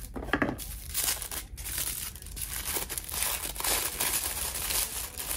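Thin black tissue paper being crinkled and pulled open from around a small cosmetic item. The paper rustles continuously from about a second in, after a short, louder sound near the start.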